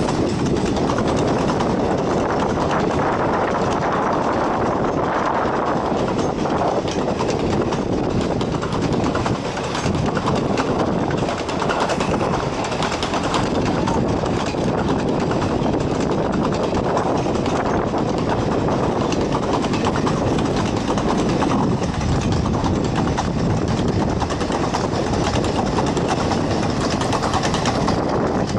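Long train of passenger coaches rolling past, a steady loud rumble of steel wheels on rail with a run of fine clicks from the wheels crossing rail joints.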